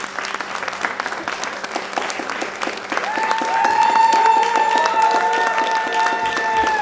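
Audience applauding a live stage performance, dense and steady clapping. About three seconds in, several long, high whoops rise over the clapping and carry on.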